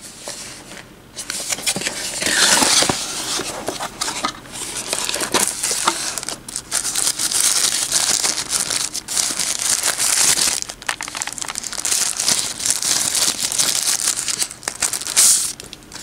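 Packaging crinkling and rustling as a small cardboard box is opened and the device inside is unwrapped from its thin protective sheet. The rustling comes in uneven spells, starting about a second in and running until just before the end.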